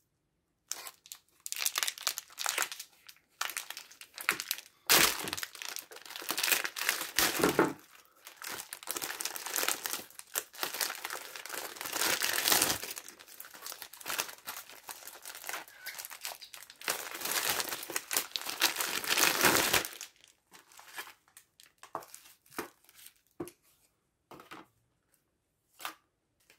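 Plastic MRE ration pouch and its packets crinkling and tearing as the ration is opened and unpacked. The crinkling runs dense for about twenty seconds, then thins to scattered light rustles and taps near the end.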